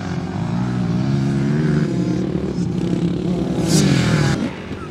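Dirt bike engines revving as the bikes ride toward and past, rising and falling in pitch. The sound is loudest near the end, then drops away suddenly.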